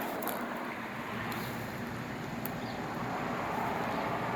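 Lennox Elite heat pump outdoor unit in its defrost cycle, giving a steady hissing, running noise.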